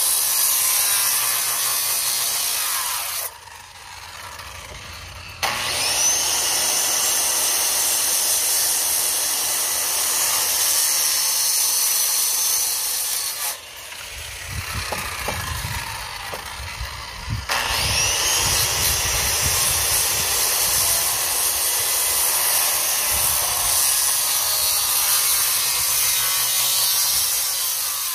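Power saw cutting into a wooden stair stringer board in long runs. The motor stops twice, and each time spins back up with a rising whine, about five seconds in and again past halfway. A few knocks fall in the second pause.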